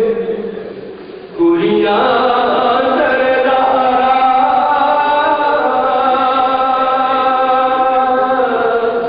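Male vocalist singing a pursa, a Shia mourning lament, in soz style. His voice fades away in the first second, comes back about a second and a half in, and then holds one long, steady note.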